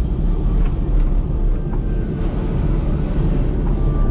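Car driving slowly on a rough road: steady low engine and road rumble, with a few faint ticks.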